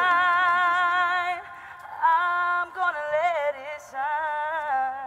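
A solo singing voice, likely a woman's, holding long, slow notes with vibrato; the first note breaks off about a second and a half in, and a new phrase begins half a second later.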